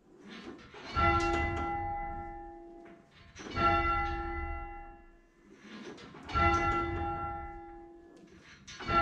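Number two church bell of a six-bell tower rung full circle, striking four times about two and a half seconds apart on alternate handstrokes and backstrokes, each stroke ringing on and dying away. A simulated bell from the Virtual Belfry ringing simulator sounds with each stroke, coming slightly early: the software's delay is still set a little short.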